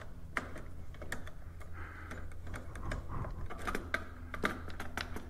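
Scattered light clicks and small metallic ticks, irregularly spaced, from a hand tool with a Torx bit working a bolt loose on a motorcycle's rear brake lever assembly.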